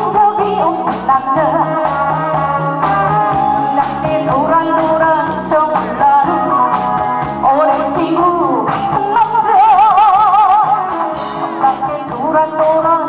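A woman singing into a handheld microphone over backing music. About two-thirds of the way through she holds a long note with a wide vibrato.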